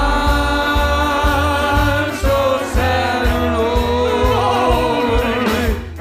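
Live band music with a singer holding a long note, then sliding through a run of notes without words, over a pulsing bass.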